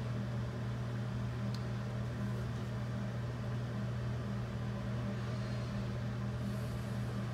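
Steady low hum of room background noise, with one faint click about a second and a half in.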